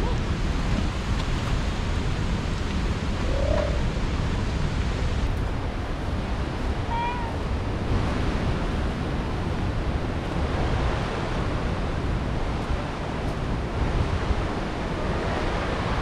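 Steady rush of fast-flowing water, an even noise with no let-up; two brief high squeaks cut through it, about three and a half and seven seconds in.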